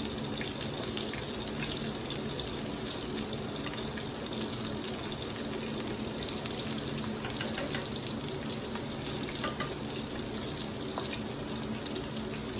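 Steady rush of water, with a faint low hum and a few light clicks.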